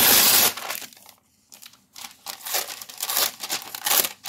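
Sheets of collage paper rustling and crinkling as they are handled: a longer burst at the start, a short pause, then irregular bits of rustling.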